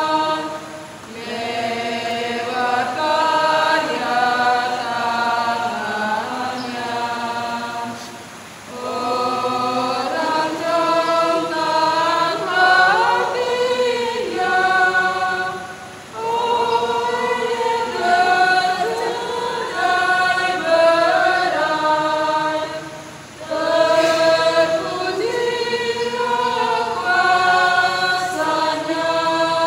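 Church choir singing in long sustained phrases, with short pauses for breath between them.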